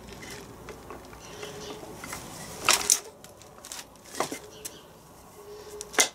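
Steel gears and shafts of a partly dismantled Land Rover R380 gearbox clinking and knocking as they are moved by hand: a few sharp metallic clacks, the loudest about three seconds in, others about four seconds in and near the end.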